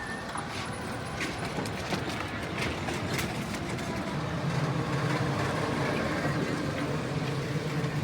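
Road traffic noise with scattered clicks and rattles. From about four seconds in, a vehicle engine runs with a low hum.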